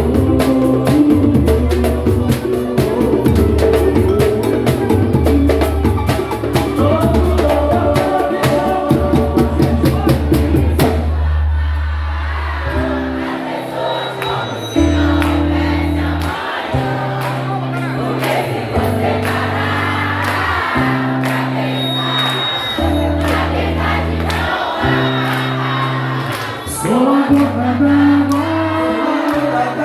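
Samba and pagode music with group singing. For about the first eleven seconds dense percussion drives it. Then the drums drop away and a slower passage follows, with long held bass notes moving in steps under the singing.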